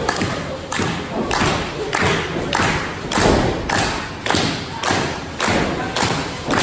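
Steady rhythmic claps and thumps, a little under two beats a second, from a wrestling crowd clapping and stomping in time.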